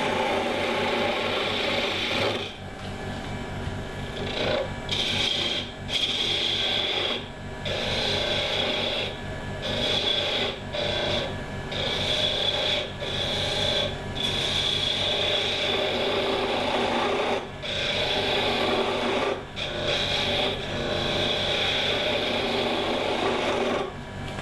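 Gouge cutting a spinning mahogany spindle on a wood lathe: a continuous scraping hiss in repeated passes, dropping away briefly about a dozen times as the tool eases off, over the lathe's steady motor hum.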